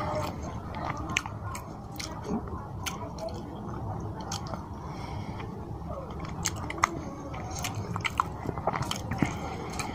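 Close-miked chewing and biting of a mouthful of rice and fish curry, with many short, sharp wet mouth clicks over a steady low hum.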